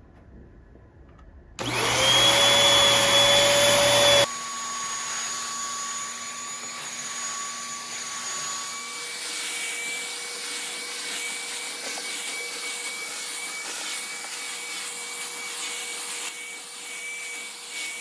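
Bissell Featherweight corded stick vacuum switched on about a second and a half in, its suction-only motor whining up to speed. It drops abruptly in level about four seconds in and then runs steadily while it is pushed over carpet.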